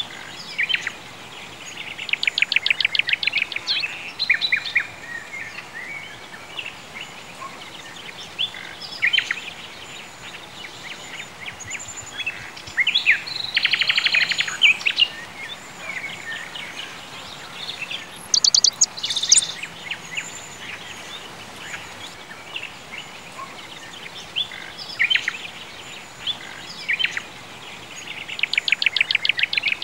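Songbirds chirping and singing, with a fast rapid trill standing out three times: about two seconds in, around the middle and near the end. A steady faint hiss lies underneath.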